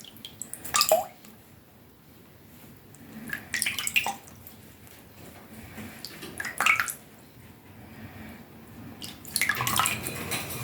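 Water splashing and dripping in four short bursts during a bird's bath, the last burst the longest.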